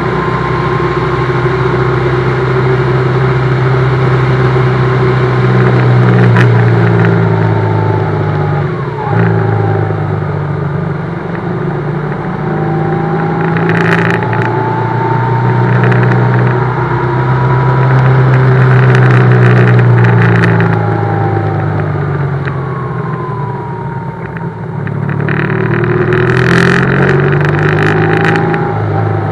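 BMW GS motorcycle engine running under way, its pitch rising and falling several times with speed and gear changes, with a thin whine that glides up and down alongside it. Short bursts of rushing noise come through a few times.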